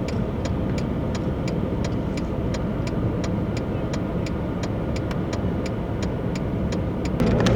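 A car running with a steady low rumble, overlaid by a fast, even ticking of about four clicks a second. The rumble gets louder about seven seconds in.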